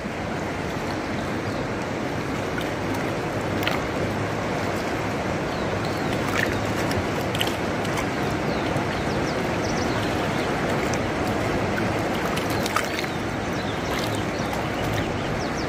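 Fast-flowing, muddy river rushing over rocks: a steady, even wash of water noise, with a few faint clicks.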